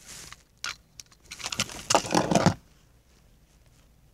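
A couple of light clicks, then a louder rustling, scuffing noise lasting about a second, from about one and a half seconds in.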